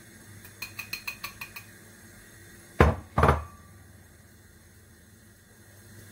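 A ceramic bowl tapped lightly against the rim of a kitchen sieve about eight times in quick succession, clinking, to knock out the last flour. Then, about halfway through, two loud knocks close together as the bowl is set down on the worktop.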